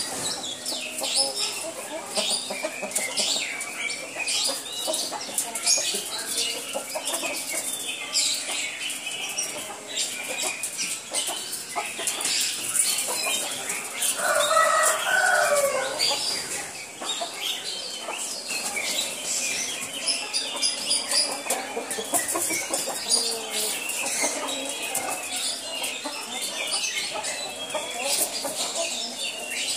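Roosters and chickens clucking and calling, with many short high calls throughout and one louder, longer call about 14 seconds in.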